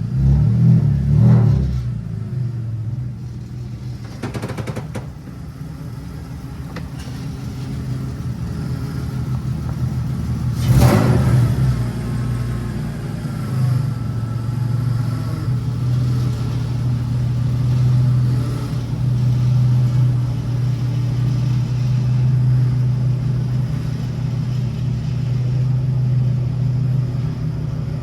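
Car engine running steadily at idle. There is a brief bang about eleven seconds in.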